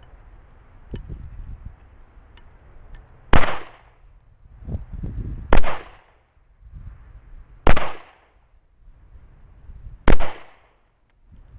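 Four shots from a Glock 19 9mm pistol firing 115-grain full-metal-jacket rounds, spaced about two seconds apart, each a sharp crack with a short echo.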